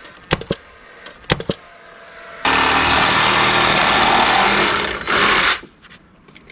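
Power tool running in two bursts, a long one of about two and a half seconds and then a short one, after a few sharp clicks.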